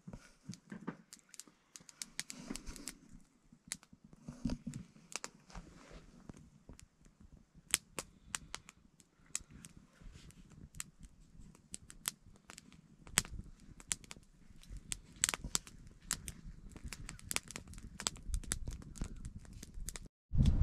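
Small wood campfire of split logs and kindling crackling as it catches, with many irregular sharp snaps and pops.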